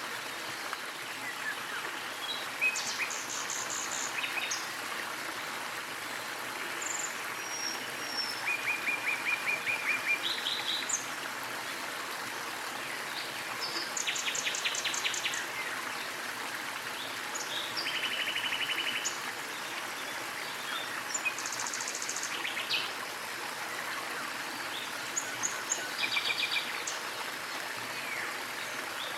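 Steady rush of a small waterfall, with birds chirping and calling over it throughout. Several of the calls are short runs of rapidly repeated notes.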